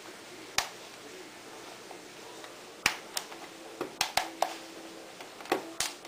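Sharp plastic clicks and snaps from a plastic pry tool levering at the seam of a Remington SuperSonic hair dryer's plastic handle casing: one about half a second in, then a quick run of about eight from about three seconds in.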